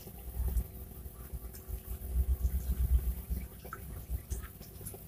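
Wind buffeting the microphone in uneven gusts, with a few faint ticks and rustles.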